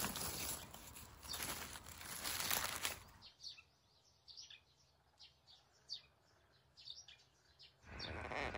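Rustling and crackling of leaves and undergrowth for about three seconds. Then, in the quiet, a small bird chirps a series of short, high, falling notes.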